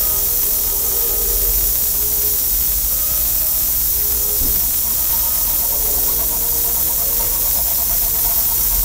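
A steady, loud hiss with a low hum beneath it, unchanging in level, with faint short tones coming and going over it.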